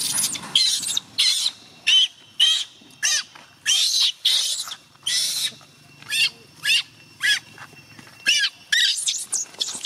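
Infant macaque crying in distress: a string of short, high-pitched screams at irregular intervals, each rising and then falling in pitch.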